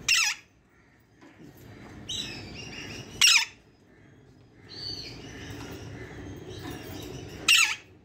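Alexandrine parakeets calling: three loud, short calls, about three and four seconds apart, each dropping in pitch at its end, with softer chattering between them.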